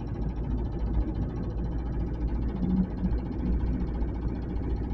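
Car driving at low speed in a low gear, a steady engine and road rumble heard from inside the cabin. The driver is tracing an unexplained knock.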